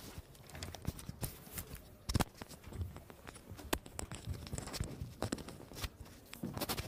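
Microphone handling noise: scattered knocks and rustles as the speaker's microphone is handled and changed over, over a low room rumble.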